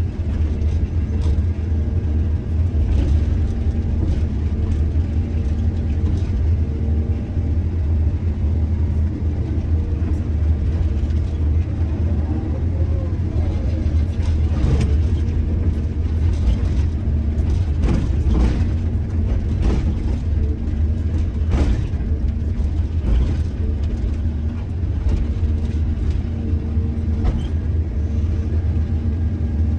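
Heavy diesel engine of a mining excavator running steadily with a low hum, with a few short knocks or clanks in the middle stretch.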